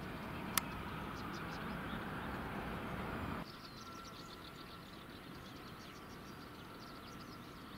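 Distant airliner jet engines during the landing rollout, a steady rushing noise with one sharp click about half a second in. Just over three seconds in it cuts off abruptly to quieter open-air ambience with bird chirps and a faint steady whine from a jet taxiing.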